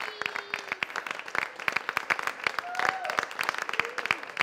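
A group clapping hands, the claps quick and uneven, with a few voices calling out over them.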